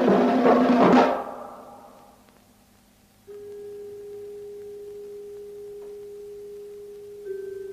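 Film score music: loud drum and percussion music stops about a second in and rings away. About three seconds in a steady, pure held tone begins, and it shifts slightly near the end.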